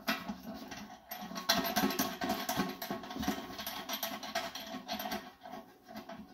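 Scratching and small metallic clicks of a washer and nut being fitted by hand onto a bolt inside an aluminum stock pot, busiest in the middle.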